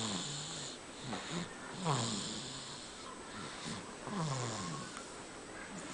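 A sleeper snoring loudly: a run of noisy breaths mixed with short pitched moans that slide down in pitch, coming about once a second.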